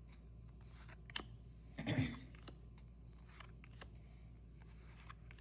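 Trading cards being handled and flipped through by hand: a scattering of light clicks and flicks, with one louder rustle about two seconds in.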